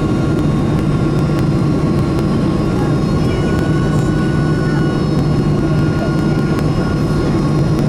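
Boeing 767 passenger-cabin noise on approach: the jet engines' steady roar heard from a window seat beside the wing, with a few thin, steady high whining tones above it.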